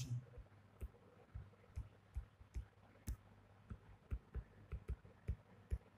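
Stylus tip tapping against a tablet's glass screen while handwriting: faint, irregular clicks, two or three a second.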